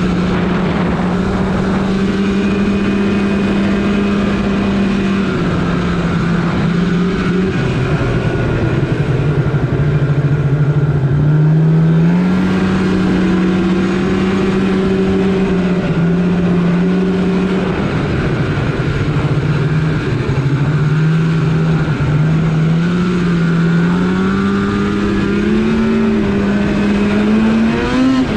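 Polaris RMK snowmobile engine running under way, its pitch stepping up and down as the throttle is worked, then climbing in a rev near the end.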